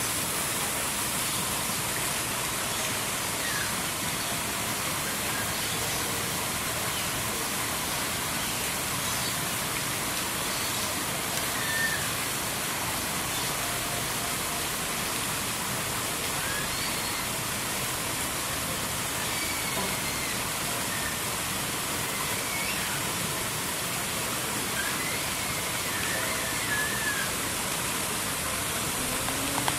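Steady, even rushing noise of running water, with faint high chirps now and then; it cuts off suddenly at the end.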